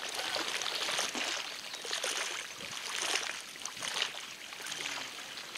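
Small waves lapping at a lakeshore: a noisy wash that swells and fades about once a second.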